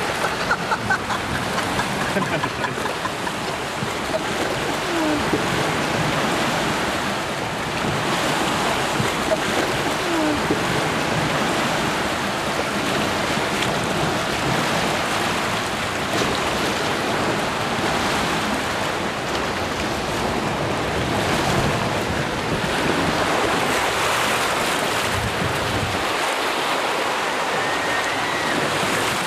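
Churning white water of a river rapids ride rushing and splashing around the round raft boat, heard from on board as a steady rush.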